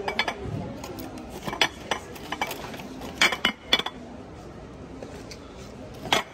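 Glass food containers clinking against each other as they are handled: about half a dozen sharp chinks at irregular intervals, the loudest pair near the middle.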